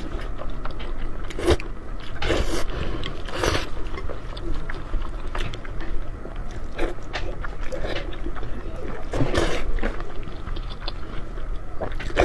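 Close-up eating sounds: slurping and chewing of wide buckwheat noodle sheets in sesame-paste sauce, with several wet slurps at irregular moments.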